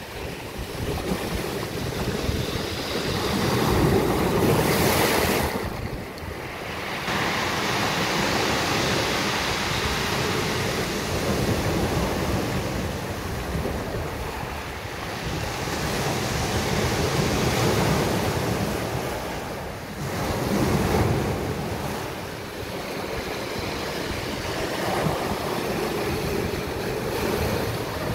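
Mediterranean surf breaking and washing up on a beach, a continuous rushing wash that swells louder every few seconds as each wave comes in, with wind buffeting the phone's microphone.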